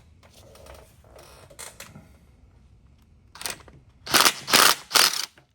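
Small metal engine parts being handled: faint rattles and clicks, then three loud clatters about four seconds in.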